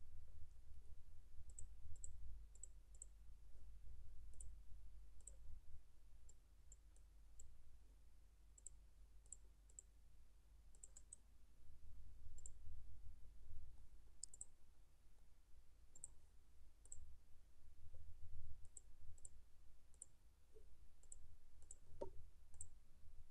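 Computer mouse buttons clicking: faint, sharp single and double clicks at irregular intervals, over a low steady rumble.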